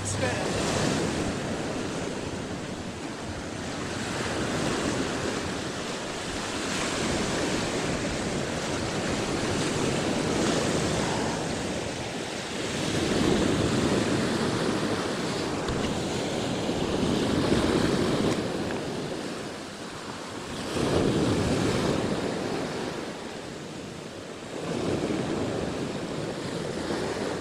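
Sea waves washing in, surging and easing every few seconds, with wind buffeting the microphone.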